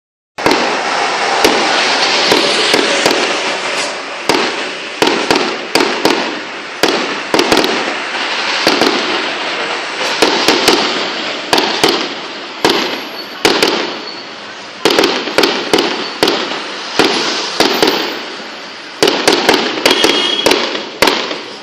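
Fireworks display: a dense run of sharp bangs from exploding shells over continuous crackling, coming in quick clusters with short lulls between them.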